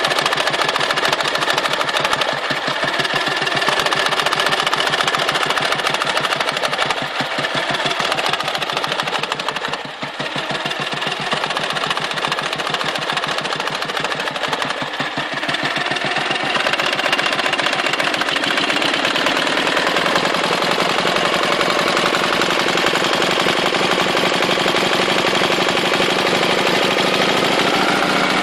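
Dnepr motorcycle's flat-twin engine running with the periodic knock the owner is chasing, a knock that comes with lost power and fuel spitting back out of the carburettor. About two-thirds of the way through the note changes, the low pulsing gives way to a steadier tone, and it rises near the end.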